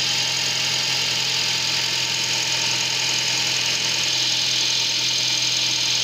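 Nissan Versa four-cylinder engine idling steadily and evenly, with no misfire to be heard now that the cylinder 4 ignition coil has been replaced. A steady high hiss of background noise runs over it.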